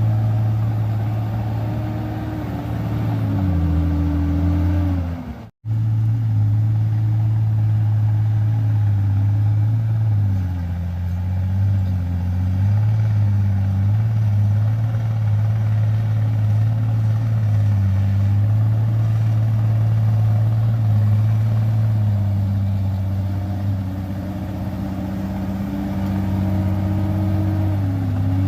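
Bulldozer's diesel engine working under load, its note dipping and rising again and again as the load on the blade changes. The sound cuts out for a split second about five seconds in.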